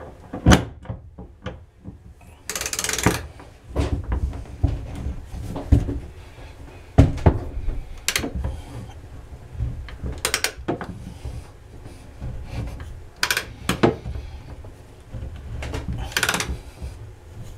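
Irregular metallic knocks and clicks from a ratchet on a socket extension turning a drain extractor tool in a bathtub drain, with two longer rasping runs. The extractor is trying to break loose a rusted, mineral-seized drain.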